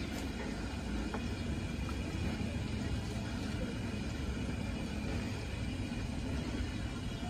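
Chicken skin deep-frying in a wok of hot oil, a steady sizzle over a low rumble, with a wire spider skimmer stirring through it and clicking faintly against the pan. The skin is crisping up as it is refried.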